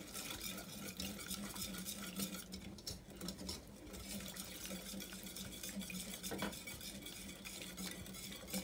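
A whisk stirring a flour-and-milk white sauce in a stainless steel saucepan, a steady stream of quick scraping strokes against the pot. The stirring keeps the sauce from going lumpy. A steady low hum runs underneath.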